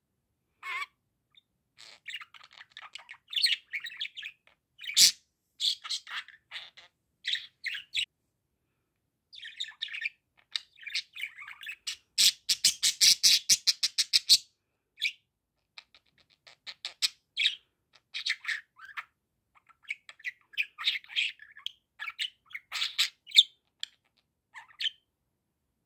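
Budgerigar chattering in bursts of chirps and warbles, with a fast run of sharp clicks a little past the middle and short pauses between phrases.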